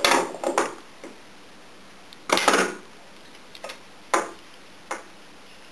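Handling noise on a wooden tabletop: about six short knocks and rustles as small fabric squares and a pair of metal scissors are picked up and set down, the loudest about two and a half seconds in.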